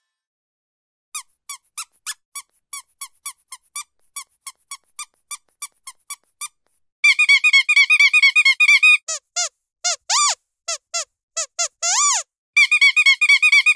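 Squeaky dog toy squeezed over and over. First come short even squeaks, about three a second. From about seven seconds in they turn into fast runs of higher squeaks, broken by a few longer squeaks that rise and fall in pitch.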